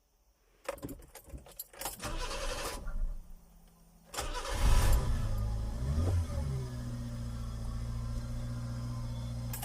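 Subaru kei truck engine being started: a few clicks and rattles first, then at about four seconds the engine cranks, catches and revs briefly, and settles into a steady idle. The start is made through an added anti-theft selector switch and a separate starter button.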